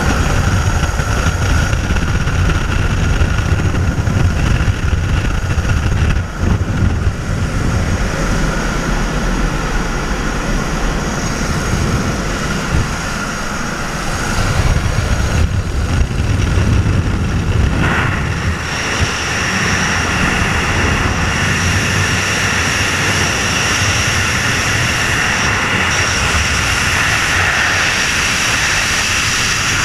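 Aircraft engine and propeller running with the slipstream rushing past the open jump door, heard from inside the cabin. About two-thirds of the way in this gives way to the steady rush of freefall wind over a helmet-mounted camera.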